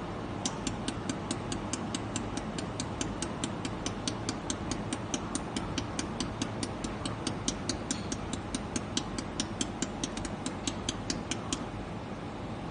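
Laser welding machine firing pulses into aluminium, giving sharp ticks about five times a second over a steady machine hum. The ticking stops about a second before the end.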